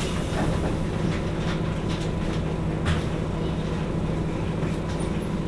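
Nissan Diesel Space Runner JP city bus (KL-JP252NAN) running steadily on the road, heard from inside the cabin: a steady low diesel engine drone with a few short rattles and knocks from the body.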